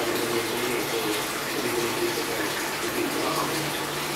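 Steady running, splashing water from an aquarium's water circulation, an unbroken even rush.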